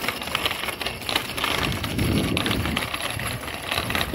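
A child's bicycle with training wheels clattering over brick paving: a rapid, irregular rattle of small clicks.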